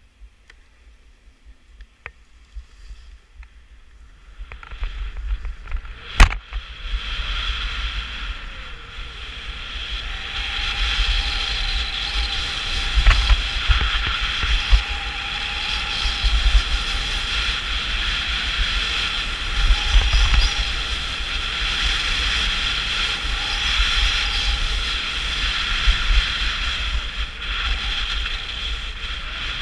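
Skis scraping and hissing over groomed snow at speed, with wind buffeting the microphone. It starts near-silent, builds as the run begins, and has one sharp click about six seconds in.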